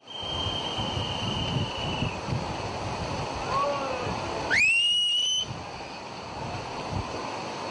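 Brown floodwater rushing in a swollen river torrent, a steady wash of noise. About halfway through, a loud whistle rises sharply in pitch and holds for about a second, the loudest sound; a thinner, steady high whistle tone sounds over the water in the first two seconds.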